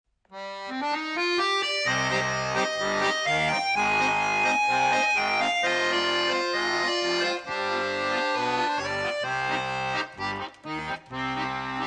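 Instrumental introduction of a theme song, led by accordion; a fuller band with bass joins about two seconds in, and the phrases turn choppier near the end.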